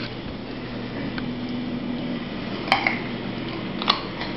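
Doberman puppy nosing at a piece of carrot on a hardwood floor: a few sharp clicks on the wood, the loudest about two and a half and four seconds in, over a steady low hum.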